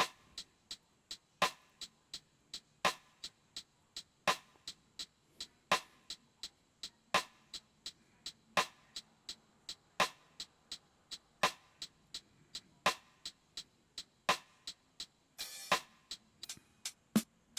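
Neo soul drum loop playing back: sharp, evenly spaced percussive hits with little low end, a stronger hit about every second and a half and lighter ticks between, and a short hissy hit near the end.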